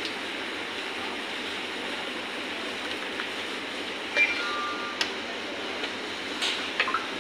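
Steady rushing kitchen background noise, with a steel ladle clinking a few times against the wok and a porcelain soup bowl as soup is ladled out. The sharpest, briefly ringing clink comes about four seconds in, with lighter ones about a second later and near the end.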